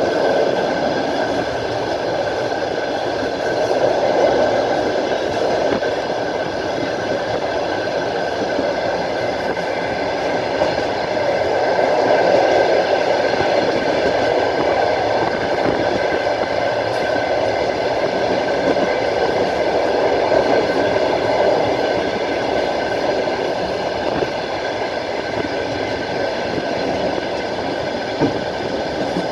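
A moving passenger train heard from its window: wheels running on the rails with a steady rolling noise and a faint steady high tone above it.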